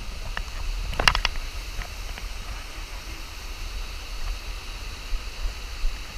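Outdoor ambience: a steady low rumble under a faint even hiss, with a brief cluster of short high chirps or clicks about a second in.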